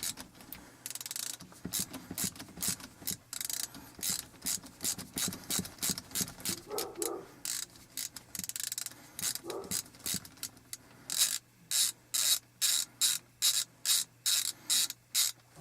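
3/8-inch drive ratchet with a 13 mm socket clicking in repeated back-strokes while backing out the T56 shifter's mounting bolts. The strokes come louder and more evenly spaced, about two or three a second, in the last few seconds.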